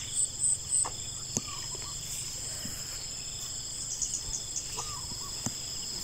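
Insects trilling steadily at a high pitch, with three quick high chirps in the first second, a few short calls, and a couple of faint clicks.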